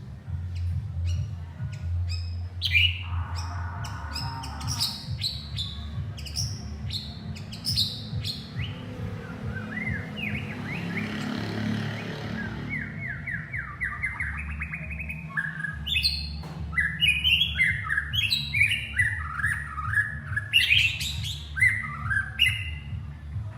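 White-rumped shama singing: a varied run of quick whistled notes and chirps, many sweeping down in pitch, with a fast series of rising notes near the middle.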